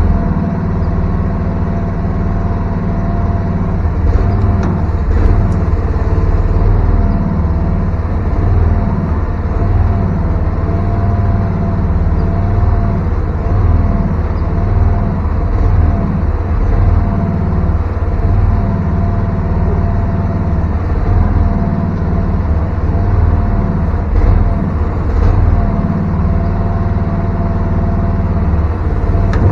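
VC13C mini excavator running steadily, its engine loud and even, with a thin whine that wavers slightly in pitch.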